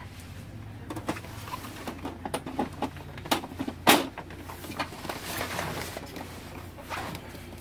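Hands handling the plastic casing of an Epson L360 inkjet printer: a string of plastic clicks and knocks with some scraping, the loudest knock about four seconds in.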